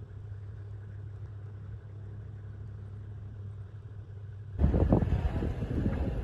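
Vehicle engine running with a steady low hum. About four and a half seconds in, the sound changes abruptly to loud wind buffeting the phone's microphone.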